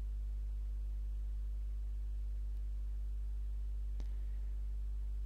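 Steady low hum underneath, with a single sharp mouse click about four seconds in.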